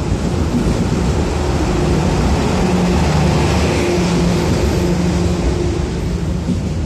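Diesel train running slowly past. Its engine drone and a hiss swell to a peak about halfway through, then ease off.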